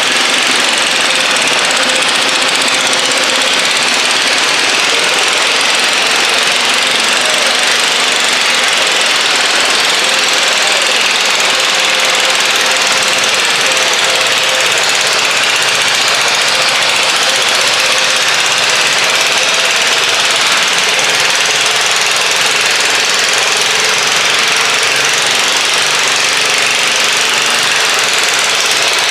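Garden tractor engine running flat out under heavy load as it drags a weighted stoneboat pulling sled, a loud, steady, rattling drone.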